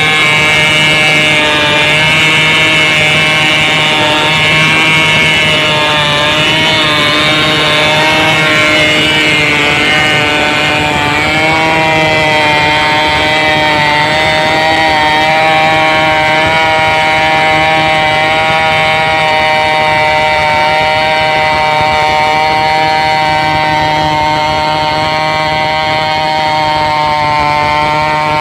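A large Stihl two-stroke chainsaw running at high revs without a break, its pitch wavering slightly as it cuts lengthwise through a sengon log.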